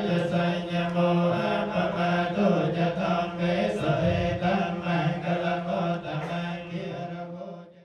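Group of Theravada Buddhist monks chanting in unison on a low, near-monotone recitation that steps between two notes, fading out near the end.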